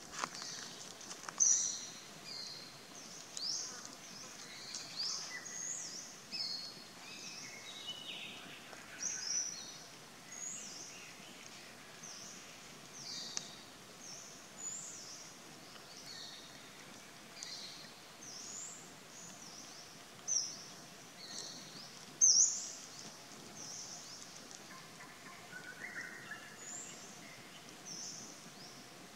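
Forest birds chirping: many short, high chirps follow one another throughout, over a faint steady background. A few louder chirps stand out near the start and about two-thirds of the way through.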